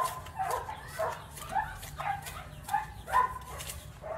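A spoon stirring a dry borax and sugar mix in a plastic container, in short scraping, squeaky strokes about twice a second.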